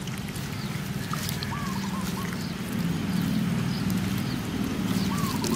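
Puppies lapping milk from a tray, with faint wet ticks and a few short, high squeaky calls. A low steady hum runs underneath and grows a little louder about halfway through.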